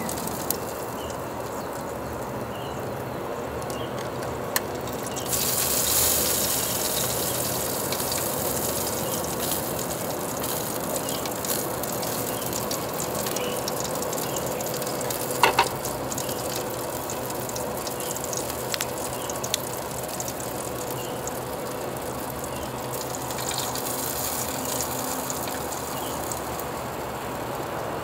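Pork belly sizzling on the aluminium plate of a disposable charcoal grill: a steady hiss with scattered small pops of fat. The hiss swells louder twice for a few seconds, and there is one sharp click about halfway through.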